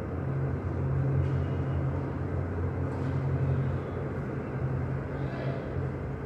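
Steady low droning hum with a rumble under it.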